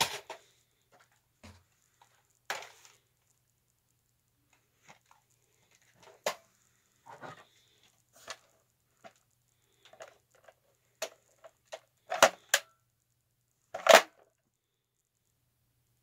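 Irregular sharp clicks and clacks of plastic Nerf blasters being handled, about a dozen in all, with the two loudest knocks near the end.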